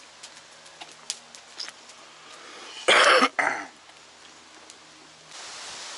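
A person coughing about three seconds in: one loud, harsh cough followed at once by a shorter second one. Before it there are faint scattered clicks and knocks, and a steady rushing hiss sets in near the end.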